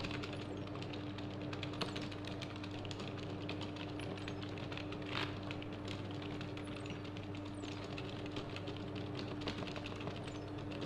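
Computer keyboard typing, a dense run of quick, irregular key clicks, over a steady low electrical hum.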